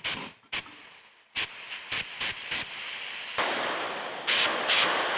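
Compressed-air blow gun fired in short hissing bursts, about one every half second, into a hydraulic lift arm cylinder to blow the rod and piston out. About three and a half seconds in a steady hiss starts under the bursts.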